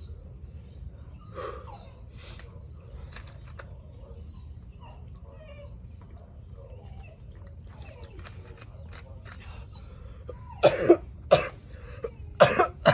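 A person coughing several times in two short fits near the end, over a low steady hum.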